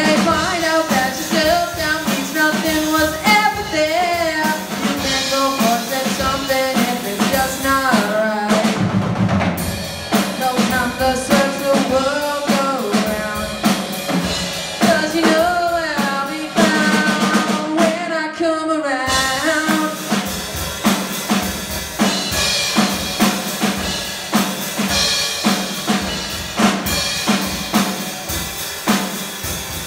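Live rock band playing a song: a singer over an electric guitar and a drum kit, the drums keeping a steady beat. The singing drops out about two-thirds of the way through while the drums carry on.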